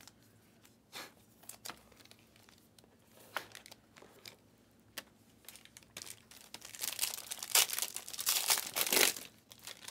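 A few light taps and clicks as the cardboard card boxes are handled, then, from about six and a half seconds in, a dense spell of crinkling and tearing as a foil trading-card pack wrapper is ripped open.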